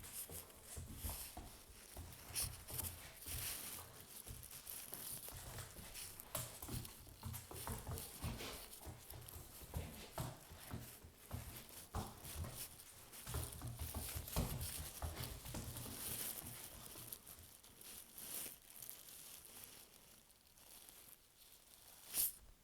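A young puppy biting and worrying at something, making irregular scuffs, rustles and clicks, with one sharper click near the end. His biting is getting slower as he tires.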